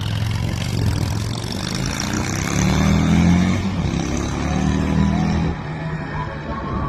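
Yamaha V Star 650's V-twin engine running, rising and falling in pitch in the middle, then dropping suddenly in level about five and a half seconds in.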